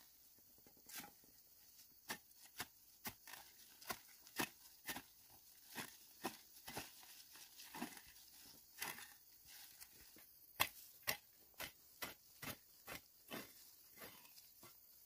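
A hand hoe chopping into soil, stroke after stroke: a long run of sharp, irregular strikes, often a little under a second apart.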